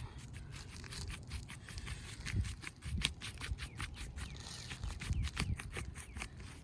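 Irregular light ticks and scrapes on asphalt roof shingles, over a low rumble.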